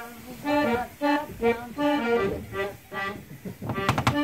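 Accordion-led folk-metal music: a melody of short, quick notes on the accordion, with a few sharp hits near the end.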